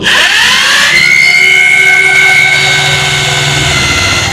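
Electric drill drilling out a rivet on a motorcycle clutch housing. Its whine starts abruptly, falls in pitch over about the first second as the bit bites into the rivet, then holds steady, easing slightly near the end.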